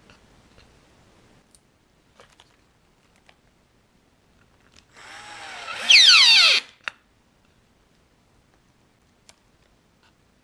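Cordless drill/driver running for about two seconds as it drives a screw through a rubber bumper foot into a wooden cutting board. Its whine drops in pitch as it slows to a stop. Faint clicks of handling small parts come before and after.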